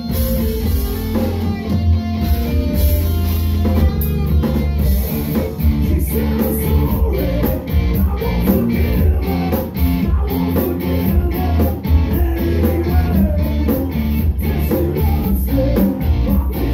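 Live rock band playing: electric guitar, electric bass and drum kit, with the drums keeping a steady beat and a man singing into the microphone.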